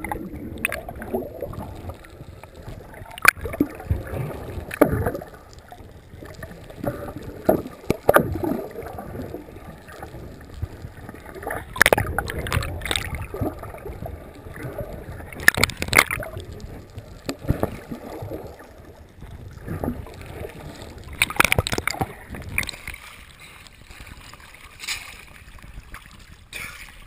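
Water churning and bubbling around the microphone underwater, with irregular gurgles and scattered sharp clicks and knocks.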